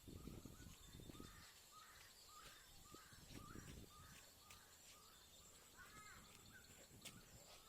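A bird calling faintly in a steady series of short, repeated notes, about two a second, over a few low rumbles.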